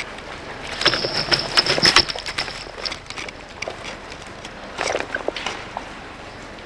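Electric airsoft gun (AEG) firing a rapid automatic burst of about two seconds, its motor whine running under the clatter of the gearbox. A shorter clatter follows near the end.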